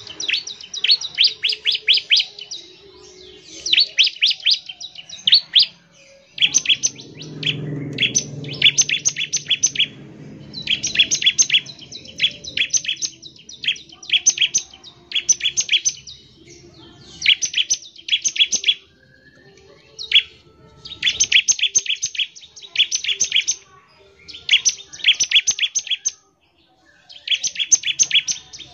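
Bar-winged prinia (ciblek) singing its rapid 'ngebren' song: about a dozen bursts of fast, high chattering notes, each a second or two long, with short pauses between. A low rumble is underneath for a few seconds near the start.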